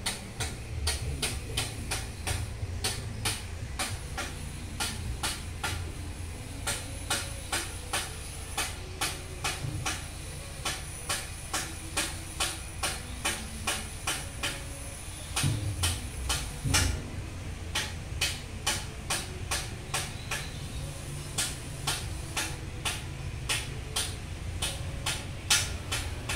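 A steady low mechanical hum with a regular clicking, about three clicks a second, like a machine running, and a couple of louder knocks partway through.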